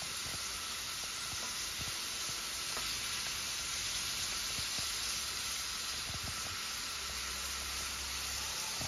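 Seafood (crabs, mussels, shrimp and corn in sauce) sizzling in a hot pan: a steady frying hiss with a few faint small clicks.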